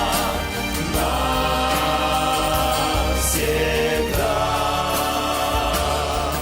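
Christian worship music: a choir singing long held wordless notes over instrumental backing.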